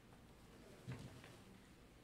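Near silence: room tone, with one faint low thump about a second in.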